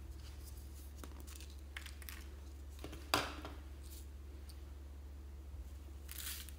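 Handling of a small plastic toy container, with a sharp plastic click about three seconds in and soft crinkling as small colourful pieces are tipped into a palm. Near the end comes a brief rustle as they are sprinkled into a bowl of foam beads. A low steady hum runs underneath.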